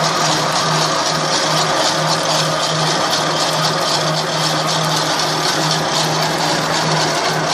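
Snack extrusion line running: the extruder and the stainless-steel cutter chopping the extruded corn-puff rope make a loud, steady machine din, a constant low hum under a dense high clatter.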